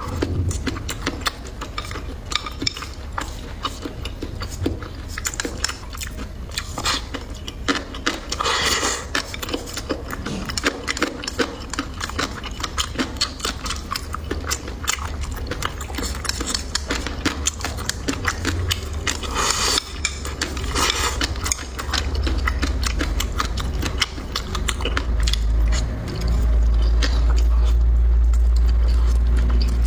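Close-up eating sounds: chewing and biting, with many small clicks of utensils against dishes and a couple of louder bursts of noise. In the last few seconds a deep, steady low rumble builds up and becomes the loudest sound.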